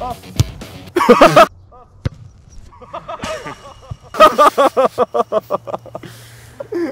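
Young men shouting and then laughing in quick, repeated bursts.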